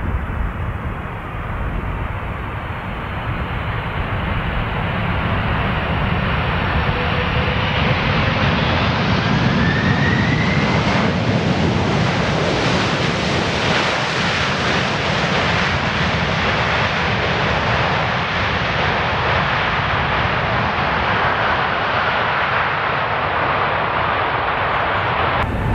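Boeing 747's four jet engines at takeoff power as the airliner passes, growing louder over the first several seconds, brightest around the middle, then slowly easing off.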